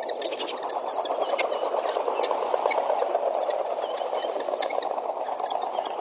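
A flock of guineafowl chattering together in a dense, rapid, rattling churr, with short chirps from smaller birds scattered over it.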